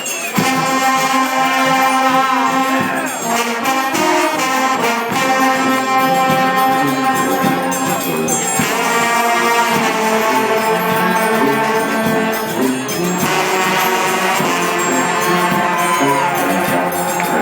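Trombones playing a tune together in long held notes, sounding several pitches at once.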